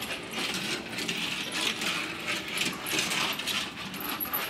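Small metal die-cast toy cars clattering and clinking on a hard surface, a quick irregular run of light metallic clicks and rattles.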